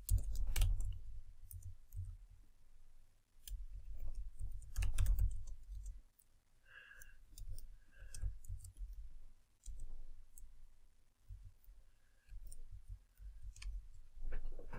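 Typing on a computer keyboard: irregular clusters of key clicks with short pauses between them.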